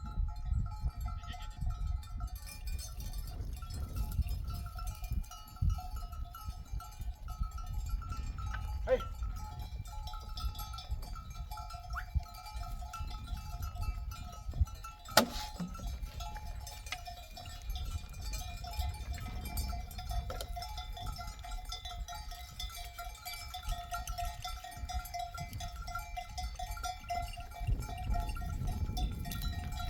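Bells on grazing sheep clinking and ringing steadily over a low rumble of wind. A single sharp click comes about halfway through.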